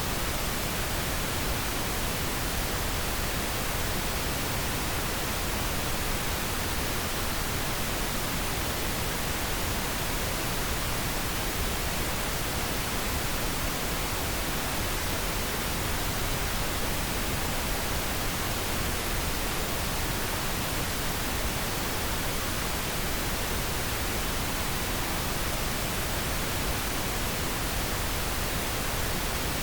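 Steady pink noise: an even, unchanging hiss spread across all pitches, with no tones or events.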